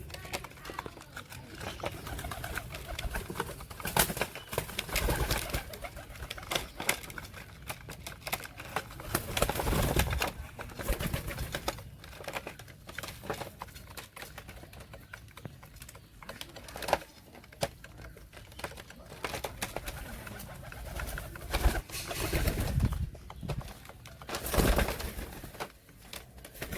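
Domestic pigeons cooing, mixed with irregular clicks, knocks and rustling noises that come and go throughout.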